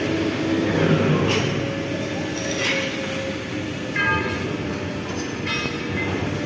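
Diesel engine of a 12-wheel truck running with a steady low rumble. Two short, higher-pitched tones sound about four and five and a half seconds in.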